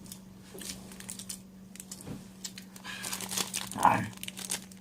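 Plastic wrapper of packaged snack bread crinkling for about a second, around three seconds in, among sparse clicky chewing and mouth sounds.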